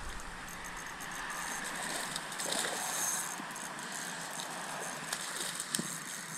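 A hooked peacock bass being reeled in on a light spinning outfit: reel winding, then short splashes as the fish thrashes at the surface near the end, over a steady background hiss.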